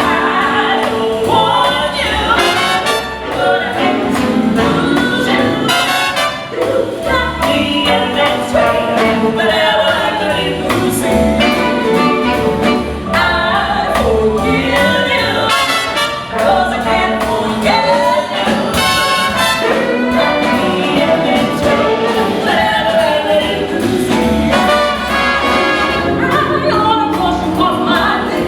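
Big-band jazz music with trumpets and trombones and voices singing.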